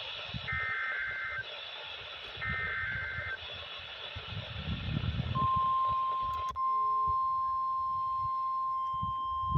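NOAA Weather Radio's Emergency Alert System weekly test signal: two warbling SAME header data bursts, each just under a second long with about a second between them. About two seconds later the steady 1050 Hz weather radio warning alarm tone starts and holds. Low noise runs underneath.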